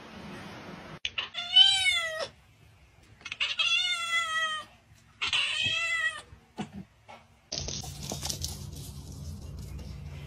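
A cat meowing three times, each a drawn-out call of a second or more that rises and falls in pitch, the middle one the longest.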